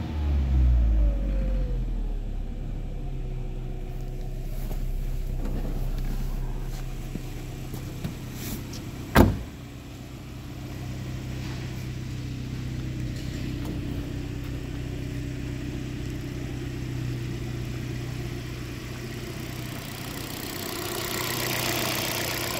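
A 2015 Alfa Romeo Giulietta's 1.4-litre turbo four-cylinder petrol engine falls back from a rev and settles into a steady idle. About nine seconds in, a car door shuts with a single sharp bang. Near the end the engine is heard up close through the open engine bay, with more hiss.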